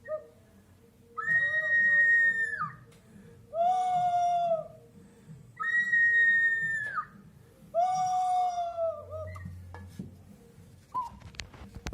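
Pre-Columbian Vicús ceramic whistling jars sounding four held whistle notes, alternating high and low. Each note lasts about a second and a half and sags slightly in pitch as it ends.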